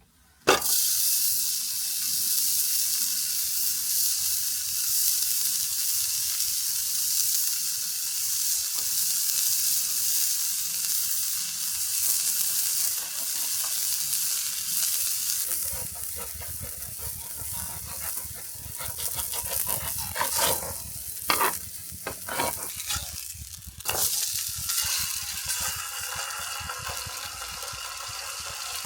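Burger patties sizzling on a griddle, a steady frying hiss. Partway through the sound turns lower and rougher, with a few sharp knocks and scrapes of a utensil.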